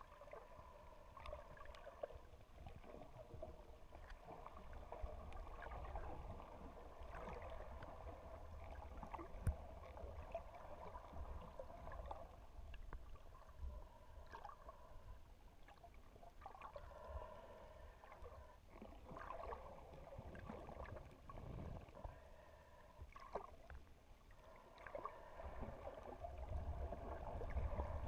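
Muffled underwater noise picked up by a submerged camera: a steady low rumble of moving water with a wavering mid-pitched hum and scattered faint clicks and gurgles.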